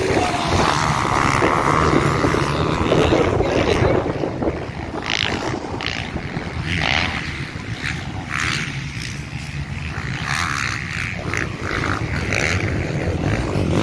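Motocross bikes' engines running on the race track, heard from trackside with wind on the microphone, louder in the first few seconds and then dropping back.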